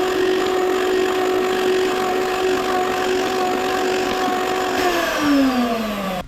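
Router in a router table running at a steady high pitch. About five seconds in it is switched off, and its whine falls as the motor spins down.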